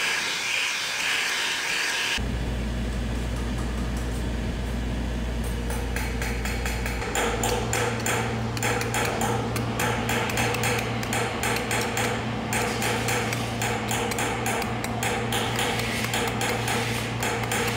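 A gas torch hisses for about two seconds. Then a wooden mallet strikes sheet metal held over a steel stake, in rapid repeated blows that shape the piece, over a steady low hum.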